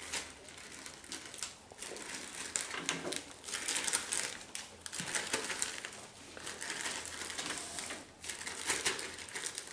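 Strawberries being mashed by hand inside a zip-top plastic bag: the plastic crinkles and crackles irregularly as the fingers knead and squeeze the fruit.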